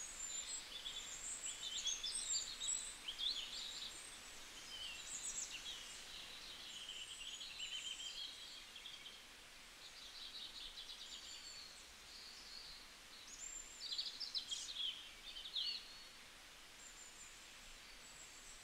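Faint birdsong: small birds chirping and trilling in quick short notes over a steady background hiss, busiest near the start and again toward the end.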